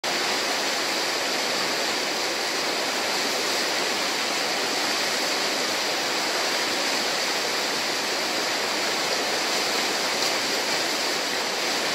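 Whitewater churning steadily through a river hole: an even, continuous rush of breaking water.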